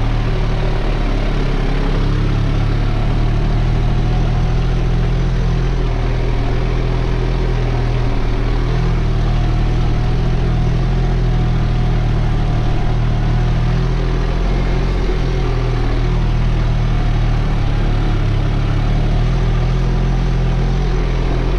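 New Holland TT4.65 tractor's diesel engine running steadily under load while pulling a mounted plough through the soil, heard from inside the cab. The engine is held at an even speed on part throttle.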